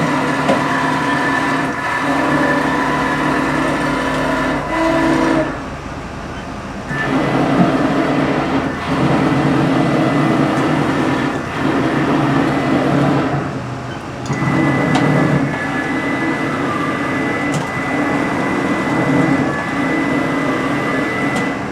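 Haas VF1 CNC vertical machining center's axes being jogged with the handwheel: the axis drives run with a steady mechanical whine and hum, dropping off briefly twice, about six and fourteen seconds in.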